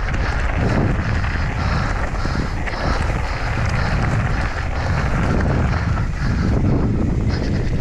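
Wind buffeting a helmet-mounted camera's microphone on a fast mountain-bike descent, over the continuous crunch and rattle of knobby tyres rolling over a gravel track and onto dirt.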